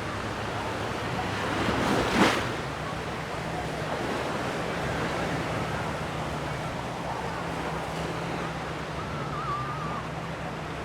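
Mediterranean sea waves washing onto a sandy beach, with one wave breaking louder about two seconds in.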